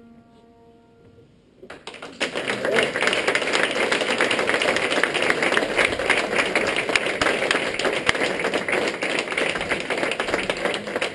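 An upright piano's last notes die away, and about two seconds in an audience breaks into steady, dense applause that keeps going.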